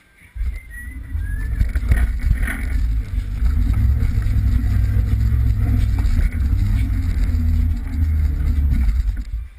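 Kart's two-stroke engine running at low revs as the kart rolls out, heard as a steady low rumble through the GoPro. It starts abruptly about half a second in and cuts off just before the end.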